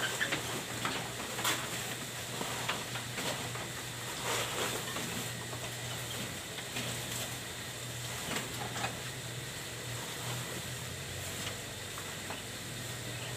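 Goats feeding on freshly cut grass in a bamboo pen: scattered rustling and light knocks and clicks, over a steady low hum.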